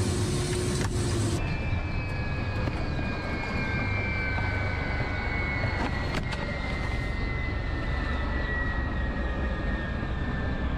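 Helicopter engine and rotor noise: a steady low rumble, with a high turbine whine that slowly falls in pitch after an abrupt change about a second in. A single sharp click comes about six seconds in.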